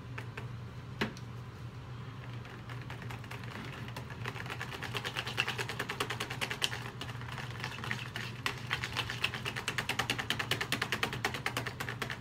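Hand stirring of cold process soap batter in a plastic bucket: a metal utensil knocks and scrapes against the bucket's sides in rapid, even clicks, which start about four seconds in, while colloidal oats are being mixed in. A steady low hum runs underneath.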